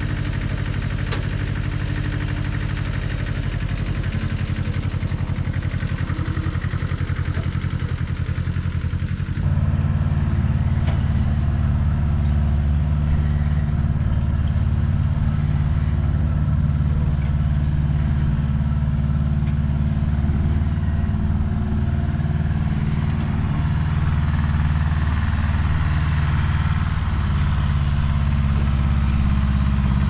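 Small farm tractor engine running steadily with a low drone, which steps up louder about a third of the way in.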